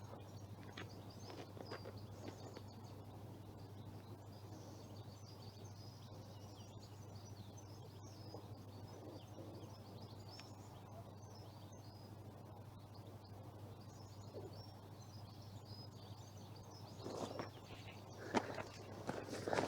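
Small birds chirping and twittering over steady low background noise and hum. A few knocks and rustles come near the end.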